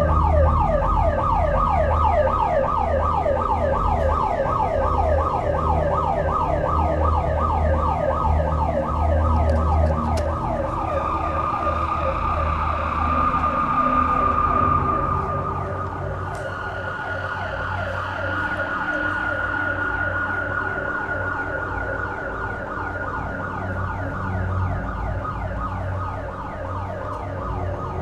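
Building alarm sounding: a fast, repeating falling sweep, about three a second, that does not let up. A second, steady alarm tone joins about ten seconds in and steps slightly higher in pitch around sixteen seconds.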